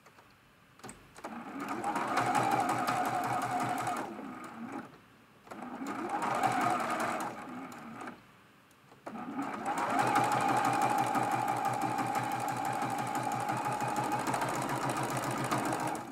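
Sewing machine stitching a straight stitch in three runs, stopping briefly twice. Within each run the motor hum and the rapid needle strokes are steady.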